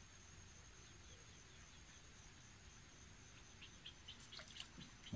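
A faint, steady high insect trill over near silence. Near the end come a quick run of small clicks and a brief splash as a snakeskin gourami is struck and pulled up on the rod.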